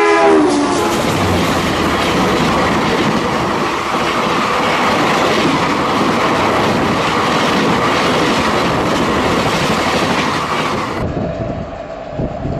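Tejas Express coaches passing close at speed on the adjacent track: a loud, steady rush of wheels clattering over the rails. A horn's tail falls in pitch and dies away at the very start. About eleven seconds in, the roar drops suddenly to a duller, quieter rumble.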